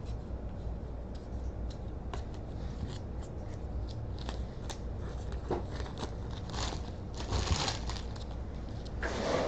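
Trading cards being handled and a pack wrapper crinkling: light scattered clicks and slides of cardboard, with louder rustling crinkles about seven seconds in and again near the end.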